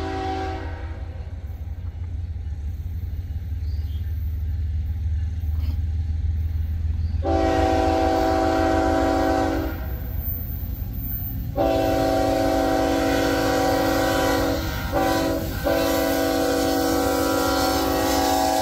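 Approaching BNSF freight train's diesel locomotive air horn sounding the grade-crossing signal: two long blasts, a short one, then a long one, about seven seconds in. Under the horn is the steady low rumble of the lead locomotives' engines.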